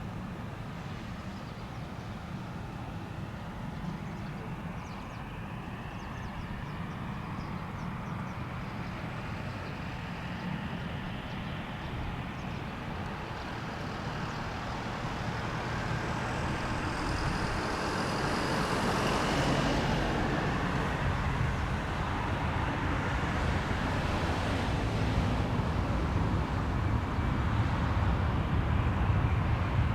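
Boeing 767-300ER airliner's twin jet engines running, the roar growing steadily louder while a whine rises in pitch as the engines spool up, with a high whistle about halfway through.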